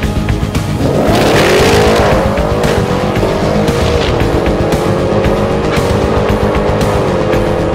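Holden VF Clubsport Commodore's V8 launching off the drag-strip line, with a burst of tyre noise about a second in. The engine note then climbs and drops at the gear changes about four and seven seconds in. Music plays over it throughout.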